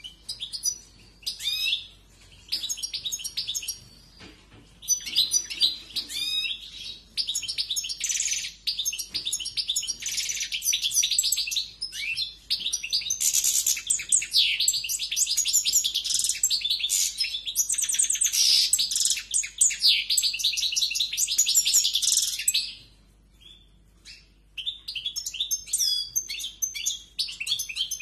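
European goldfinch singing a fast, high twittering song of rapid trills and chirps. It starts in short phrases, then runs almost without a break for about fifteen seconds, pauses for a couple of seconds near the end, and starts up again.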